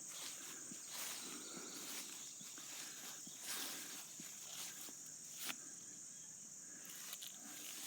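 A steady, high-pitched chorus of insects trilling in summer fields, with a few soft, irregular footsteps or rustles through grass.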